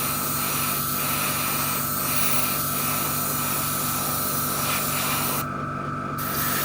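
Airbrush spraying primer, a steady hiss of air over the steady hum of its compressor; the spray cuts off for about half a second near the end, then starts again. It is spraying quite slow, at a pressure the painter thinks he may have to raise.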